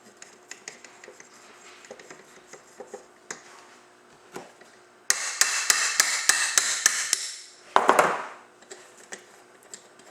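Hand tools working metal parts of a Ski-Doo PDrive drive clutch as a roller axle is pushed out with an axle removal tool. Light clicks and taps come first, then about five seconds in a sudden loud run of rapid, evenly spaced clicks lasts about two seconds, followed by a short rasping burst.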